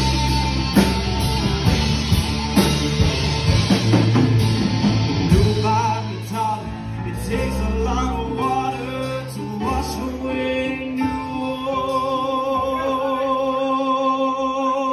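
Live rock band of electric guitars, bass, keyboard and drum kit playing the outro of a song. Drum hits run through about the first six seconds, then the band holds long sustained chords with a wavering tone ringing on.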